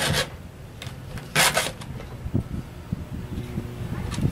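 Round chainsaw file in a Codirom file-guide sharpener rasping across the cutting teeth of a Stihl MS 251 C's saw chain, in short separate strokes a second or more apart.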